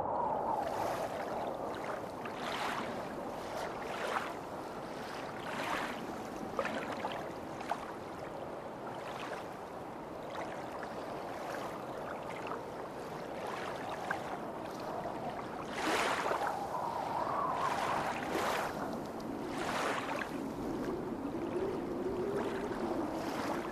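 Small Black Sea waves washing onto the beach, each surge swelling and falling away every couple of seconds over a steady hiss of surf.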